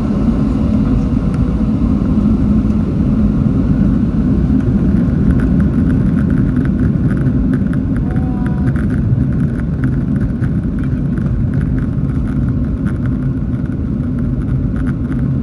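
Cabin noise of a Boeing 737 taxiing: a steady, even rumble of the jet engines and rolling landing gear heard through the fuselage. From about a third of the way in, light clicks and rattles come through.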